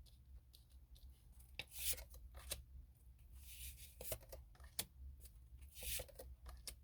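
Tarot cards being handled on a table: soft sliding swishes, three of them, among light ticks and taps.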